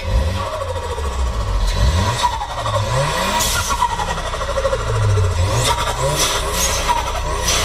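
Audi S3 8V's turbocharged 2.0-litre four-cylinder revved several times in quick blips, each rising in pitch, with the fluttering chatter of the turbo as the throttle snaps shut between revs.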